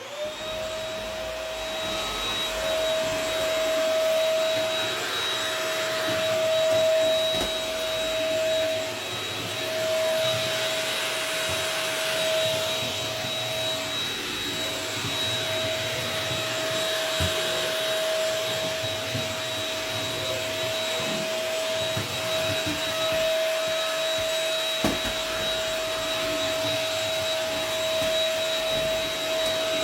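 Shark Rocket HV301 corded stick vacuum running on its floor setting. Its motor gives a steady high whine over a rush of air, switching on at the start and swelling slightly as it is worked over a bathroom floor picking up debris.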